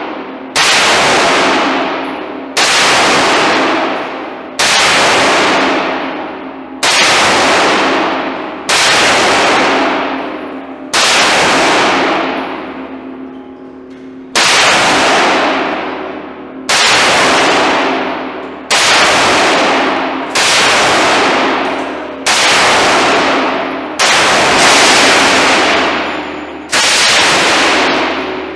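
Gunfire from 5.56 mm rifles: an M4A1 carbine firing single shots at a steady pace of about one every two seconds, each crack ringing on in the indoor range. Near the end an M249 SAW is firing.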